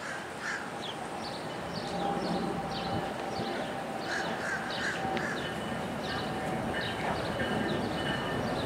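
Birds calling over and over in short, high, downward-sliding chirps over a steady background hum, with a thin steady tone joining about halfway through.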